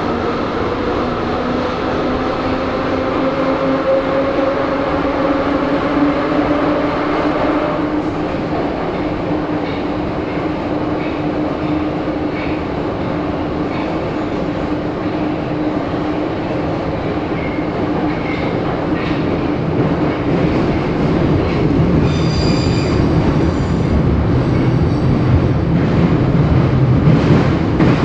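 Interior of a Moscow Metro train car running through the tunnel: a steady rumble of wheels on rails under a motor whine that rises slightly in pitch and then fades out. Scattered clicks come from the rails, and late on there is a brief high-pitched wheel squeal as the rumble grows louder.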